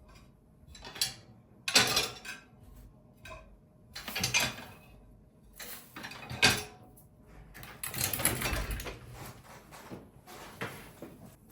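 Objects being handled by hand: a series of sharp clicks and knocks, the loudest near the start, with a longer rustling scrape past the middle.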